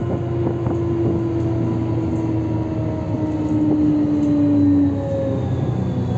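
Inside a 1998 GolAZ-AKA-5225 articulated city bus under way: the Mercedes-Benz OM447hLA diesel drones low, with a drivetrain whine that slowly falls in pitch over about five seconds. A few light rattles come in the first second.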